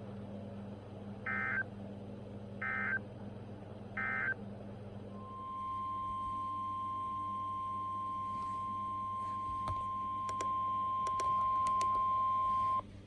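NOAA Weather Radio alert signalling: three short bursts of warbling data tone, the SAME end-of-message code that closes a warning. Then, about five seconds in, a steady 1050 Hz warning alarm tone sounds for about seven and a half seconds, steps up in loudness partway through and cuts off suddenly, announcing the next warning.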